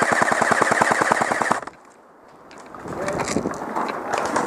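Airsoft electric rifle (the player's JG G36C) firing one fast full-auto burst of about a second and a half, with the rapid, even clatter of the gearbox cycling, then cutting off sharply.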